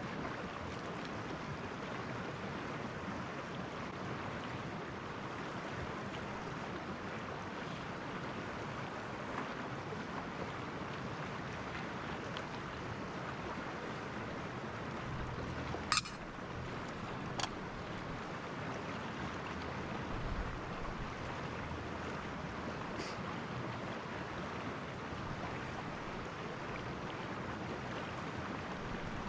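Steady rush of a small, fast-flowing stream running high after snow. Two sharp clicks sound about halfway through, a second and a half apart.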